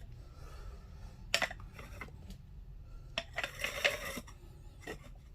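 Scattered clicks and a short clatter of hard parts being handled while a replacement part is fitted inside a washing machine, a few isolated clicks with a busier cluster just after the middle.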